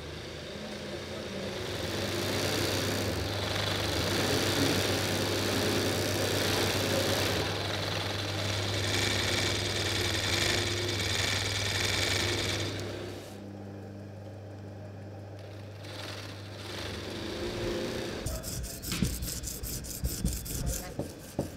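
Embroidery machine running steadily, its needle stitching fabric stretched in a hoop, with a low hum and a hiss. It quietens about two-thirds of the way through. Near the end comes a run of quick scraping strokes as a knife blade is sharpened on a whetstone.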